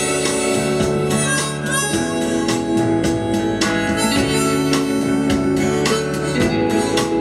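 Recorded music: the instrumental opening of a song, a lead melody over plucked guitar and a steady bass, with no singing.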